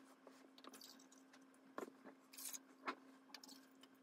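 Near silence: faint room tone with a steady low hum and a few soft clicks.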